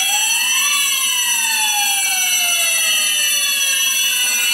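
Explosion-proof fire alarm sounder wailing in alarm, its pitch climbing for about a second, then falling slowly for about three seconds before climbing again, over a steady high-pitched tone. The alarm follows a flame detector set off by a test flame.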